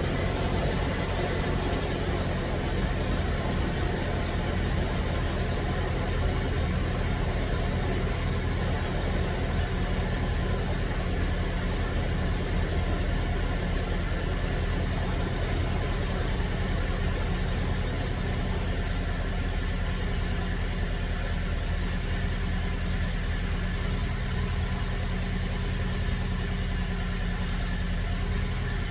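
Ute's four-cylinder petrol engine idling steadily. The owner says the engine is missing badly and suspects the ignition coils.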